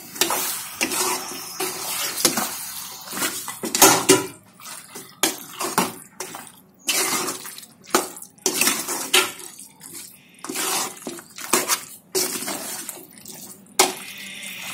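Metal spoon scraping and knocking irregularly against a large metal cooking pot as raw chicken pieces are stirred into fried onion and tomato, with the wet squelch of the meat.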